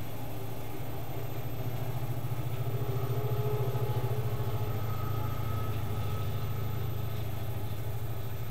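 Electric hub-motor wheel spinning under power from a supercapacitor bank: a steady low motor hum with a fast fine pulse and a faint higher whine, swelling a little in the middle.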